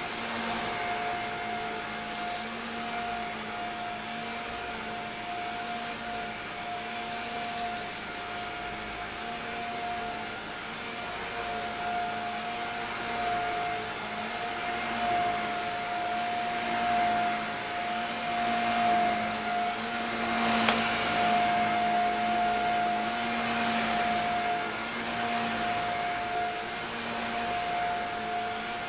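Vacuum cleaner running steadily, its motor giving a steady whine over a rush of air, with a few brief crackles and one sharp click about two-thirds of the way through.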